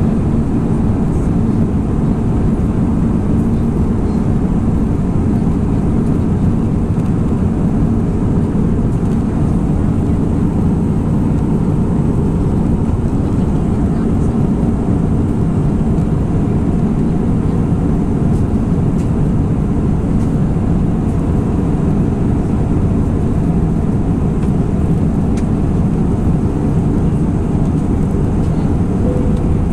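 Steady cabin noise inside an Airbus A319 in flight, heard from a window seat over the wing: the low, even drone of the engines and the airflow over the fuselage.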